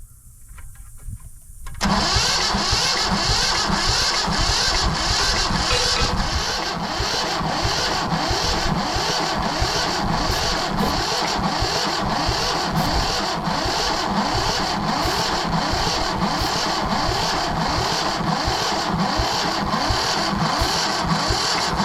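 Yanmar 1500 tractor's diesel engine being turned over by its starter, cranking steadily with an even pulsing rhythm and not starting. The cranking begins suddenly about two seconds in.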